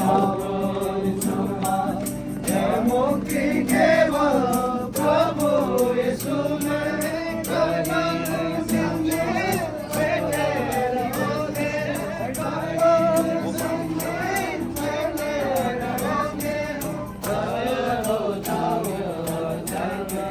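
A group singing a Christian gospel hymn with instrumental accompaniment and a steady, even percussion beat.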